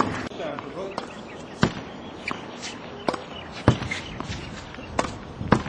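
A tennis ball being rallied against a practice backboard on a hard court: sharp pops of racket strikes, the ball hitting the wall and bouncing, about seven impacts spaced roughly half a second to a second apart.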